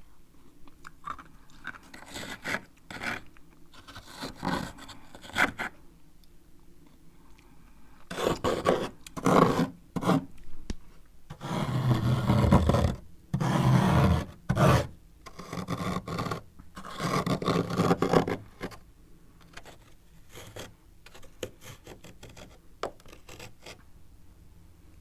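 A spoon scraping built-up frost off a freezer in repeated rasping strokes. The longest and loudest strokes come in the middle, with lighter scrapes and small clicks before and after.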